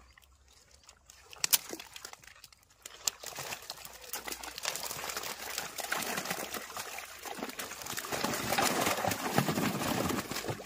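Water sloshing and splashing as a keepnet full of live fish is lowered into a pond, the fish thrashing as they are let go. It starts quietly with a few knocks, and the splashing begins about three seconds in and grows louder toward the end.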